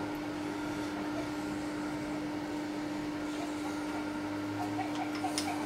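Metal lathe running with a steady hum while the cutting tool is set up at the toolpost, with a sharp click about five seconds in.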